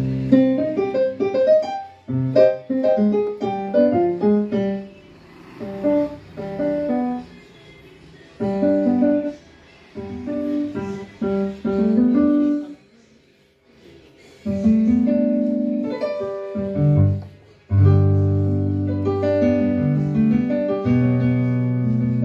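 Korg Kross 2 synthesizer workstation played through a speaker on a piano-type sound: phrases of quick notes broken by short pauses, then, about two-thirds through, held chords over low bass notes.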